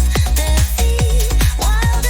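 Electronic dance music instrumental: a steady four-on-the-floor kick drum about four beats a second under a sustained bass, with a wavering synth lead melody.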